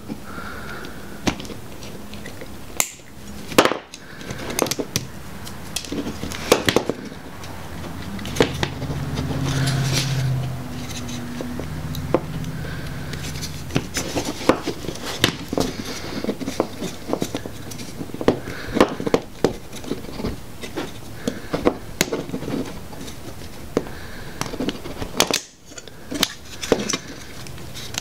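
Small sharp clicks, snaps and scrapes of hard plastic as the locking tabs of a GM PCM connector's gray cover are squeezed and pried, with a snip of diagonal side cutters cutting a zip tie near the start. A low hum swells for a few seconds in the middle.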